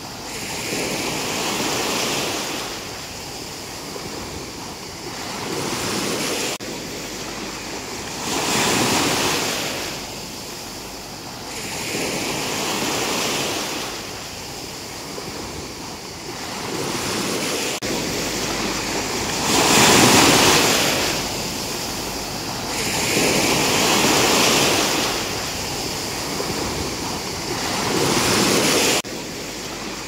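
Small sea waves washing over rocks and onto a sandy shore, swelling and ebbing every three to four seconds, the strongest swell about two-thirds of the way through.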